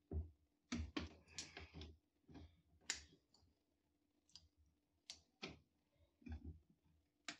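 Faint, irregular plastic clicks and knocks as the snap-in clips of a TV's plastic trim are pried loose one after another.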